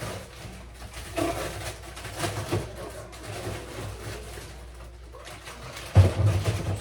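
Groceries being handled and put away: rustling packages and light knocks, then a heavy thump about six seconds in, over a low steady hum.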